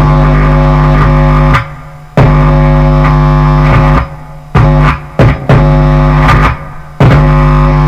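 Bass guitar played through a distortion pedal and a small guitar amp: loud, heavily distorted held notes that cut off suddenly and start again every second or two, with a couple of short stabs near the middle.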